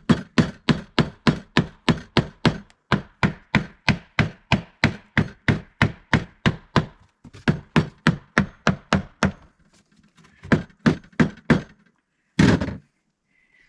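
Ratchet strap being cranked tight to pull a bowed, glued board in, a steady run of sharp clicks at about three or four a second with a couple of short pauses, then one longer rasp near the end.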